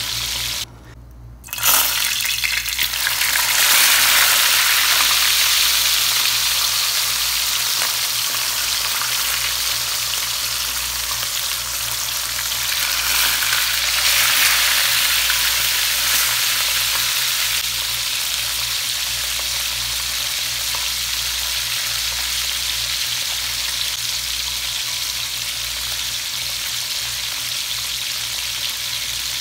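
Hot cooking oil sizzling steadily in a pan as tilapia fries. The sound drops out for under a second about a second in, then the frying comes back suddenly and louder.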